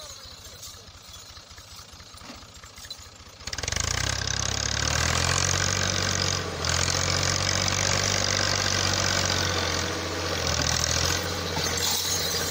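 Fiat 480 tractor's three-cylinder diesel running low, then opened up sharply about three and a half seconds in and held at a steady, loud working note. It is labouring under load as it drags a heavily loaded trolley through soft sand.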